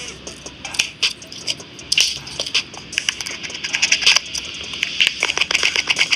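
Small hand tools working on a phone: a quick run of light clicks and taps, with a scraping hiss from about halfway.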